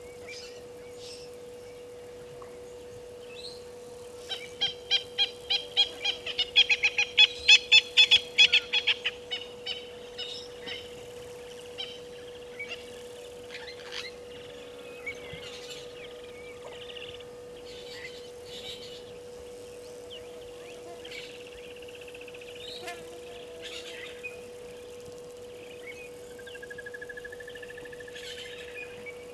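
A bird calling: a loud rapid series of repeated notes, about five a second, that starts about four seconds in, swells and dies away after about six seconds, followed by scattered short calls and a brief trill near the end. A steady hum runs under it.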